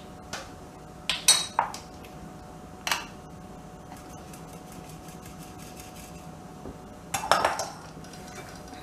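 A metal flour sifter clinking against the rim of a glass mixing bowl as flour and cocoa are sifted into cake batter: a couple of sharp ringing knocks about a second in, one more near three seconds, and a quick run of clinks near the end.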